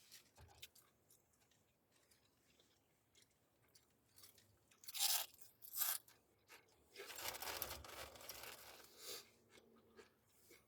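Crunchy food being bitten and chewed close to the microphone, likely barbecue kettle chips: two sharp crunches about five and six seconds in, then a longer spell of crunching and rustling from about seven seconds in.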